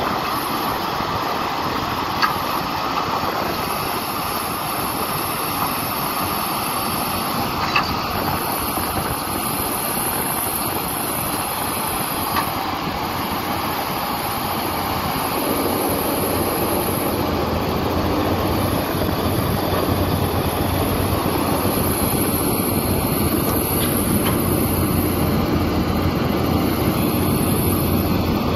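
Caterpillar 320D hydraulic excavator's diesel engine running under load as it digs a pile of dirt, with a few sharp knocks from the working machine. About halfway through the noise grows louder and a low engine drone strengthens.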